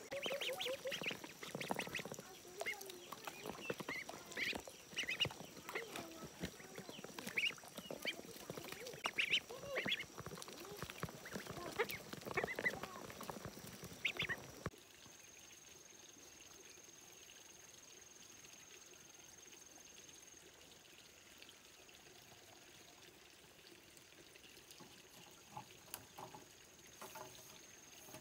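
A flock of farmyard fowl calling, with many short calls overlapping. About halfway through the calls cut off abruptly, leaving a quiet background with a few faint knocks near the end.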